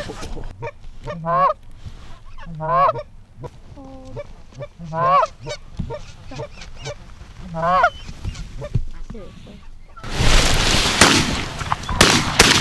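Canada goose honking: four separate calls a second or two apart. About ten seconds in, a burst of shotgun blasts in quick succession from several hunters' guns.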